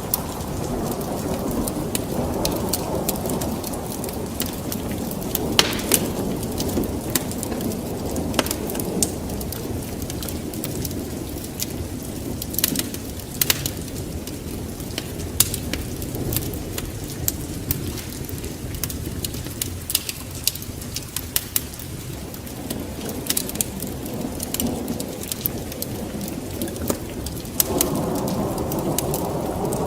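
Steady rain with a low rolling rumble of thunder that swells again near the end, and sharp crackles scattered throughout.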